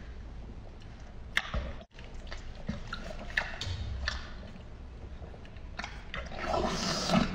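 Close-up wet eating sounds of a person biting, sucking and chewing braised pork on the bone: scattered sticky mouth smacks, getting louder and denser near the end.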